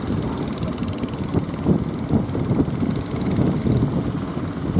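Engines of several fishing boats running as they motor through choppy water, a low uneven drone mixed with the rush of surf.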